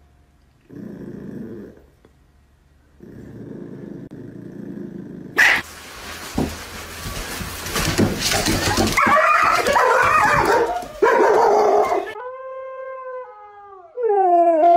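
Three dog sounds in turn: a small chihuahua growling in low bursts, then loud barking and yelping with commotion, then a husky howl whose pitch falls and rises in long glides near the end.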